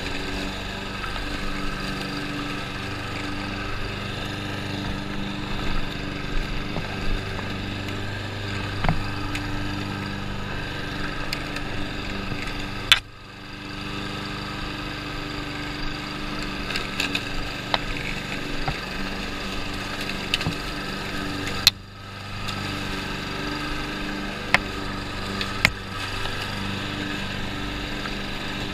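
Small walk-behind lawn mower engine running steadily under load, with scattered light ticks and two sharp clicks, each followed by a brief dip in the engine sound.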